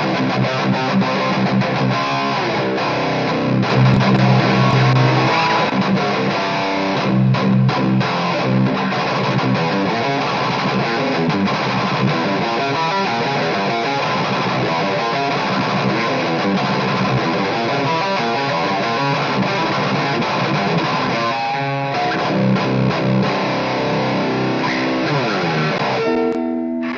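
Electric guitar played through a VOX combo amplifier and picked up by a microphone at its speaker: a continuous run of chords and picked notes. The playing breaks off near the end.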